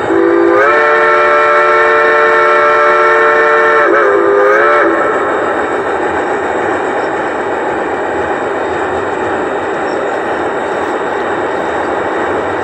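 Whistle of a battery-powered G-scale model steam locomotive, played as a chord of several tones. It is held for about three seconds, then dips and swells into a short second blast about four seconds in. After that comes a steady running noise from the train.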